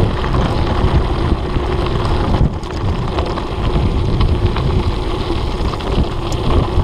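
Wind buffeting a bike-mounted camera's microphone while a mountain bike rolls fast down a gravel road, with tyre noise and frequent small rattles and knocks from the bike over the stones.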